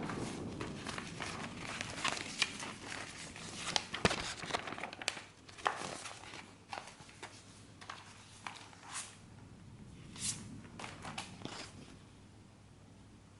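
Trading card packaging and cards being handled: crinkly plastic and paper rustling with irregular clicks and taps, the sharpest about four seconds in. The handling thins out and stops near the end.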